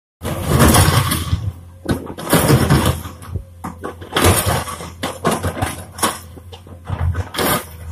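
Tracked hydraulic excavator digging out broken asphalt and rubble with its bucket: irregular scraping and clunking of stone against steel over the steady run of its engine.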